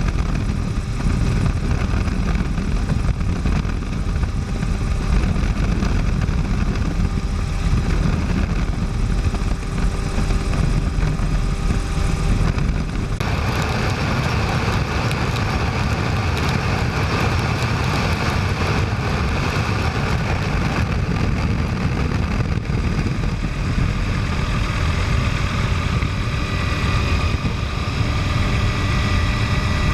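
Tour helicopter in flight: steady, loud engine and rotor noise. The sound turns brighter and hissier about 13 seconds in.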